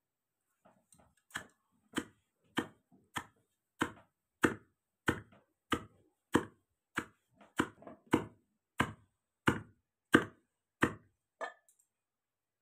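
A long pestle pounding damp pearl millet (bajra) in a tall mortar: a steady rhythm of heavy thuds, about three every two seconds, which stops near the end. The pounding loosens the husks from the soaked grain.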